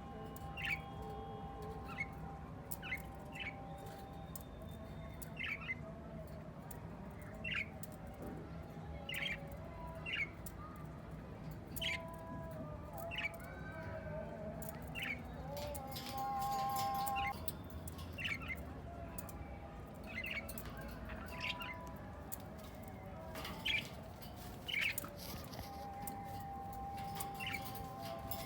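Ringneck parrots giving short, sharp squawking calls, one every second or two, with a louder pair near the end.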